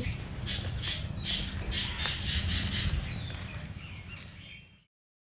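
Small birds chirping and squawking in quick repeated calls, about three a second, over a low rumble. The sound fades away to silence near the end.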